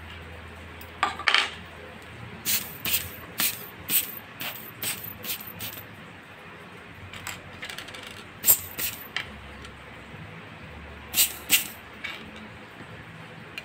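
Rubber hand air-blower bulb puffing short blasts of air to clean the small parts of a quartz clock movement: a quick run of about eight puffs, a few more a little later, and two more near the end.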